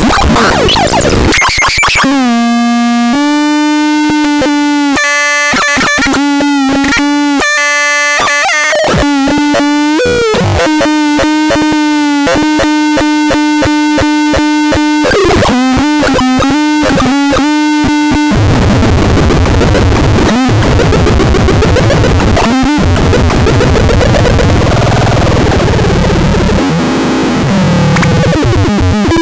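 Loud, harsh electronic sounds from a sound demo. At first a buzzy tone holds one pitch with rapid stutters and short breaks. About two thirds of the way in it gives way to a rough, distorted noise.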